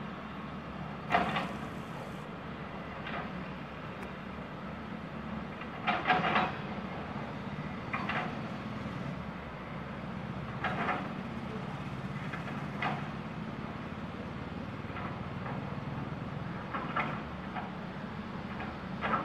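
Indian Railways BOXN freight wagon rake moving away: a steady low rumble broken every few seconds by short, sharp sounds.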